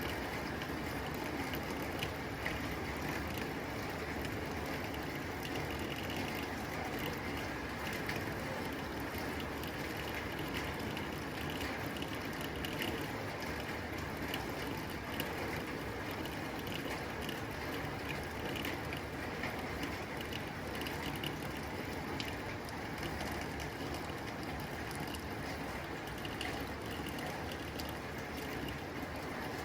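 Steady rain pattering on a tin roof: a dense, even hiss of drops on metal, with scattered sharper drop ticks throughout.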